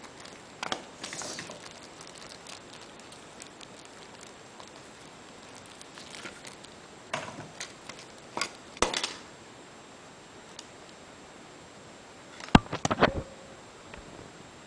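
Hands handling a 1/200 scale model airliner and its packaging: scattered light rustles and knocks, with a quick run of sharp clicks near the end.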